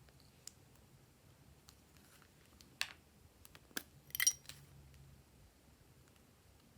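Slime being handled, with faint scattered sticky clicks and a sharp click near the middle, then a bright clink of a hard object with a short ringing tail about four seconds in.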